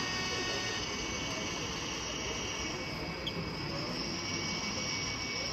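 Steady running sound of an H0-scale model SNCF BB 67000 diesel locomotive passing slowly, over a continuous background hum.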